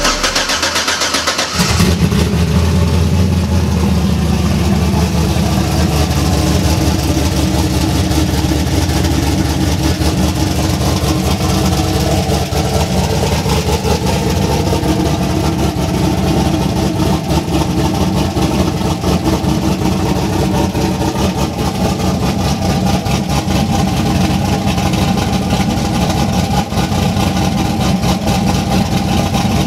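Turbocharged 408-cubic-inch V8 in a big-turbo Chevy Silverado, coming in about two seconds in and then running steadily at idle.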